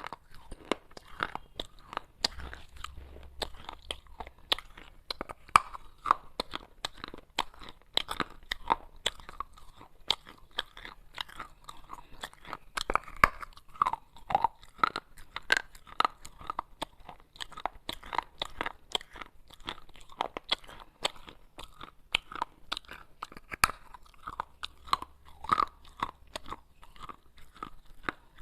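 Close-up crunching of baked clay pot pieces being bitten and chewed: a dense run of sharp, crackly crunches.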